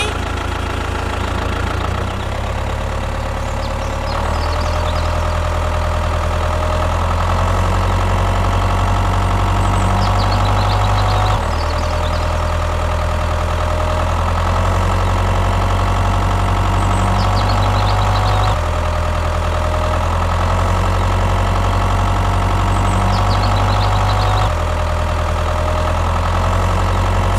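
An engine running steadily with a low drone. Its pitch and level shift suddenly a few times. Faint short high chirps come now and then.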